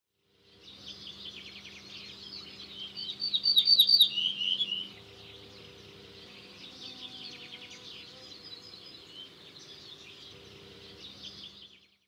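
Small birds chirping and twittering, with a louder run of quick chirps about three to five seconds in; the birdsong fades out at the end.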